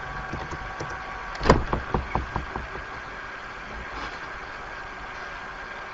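Steady hiss and faint hum from an open voice-chat microphone, with a quick run of about six sharp clicks or knocks about a second and a half in.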